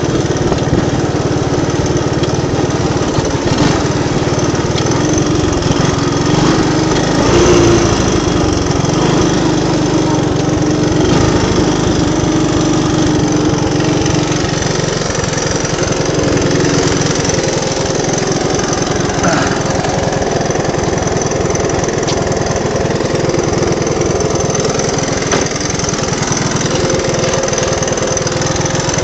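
Three-wheeled ATV engine running steadily while the machine is ridden, briefly louder about seven seconds in.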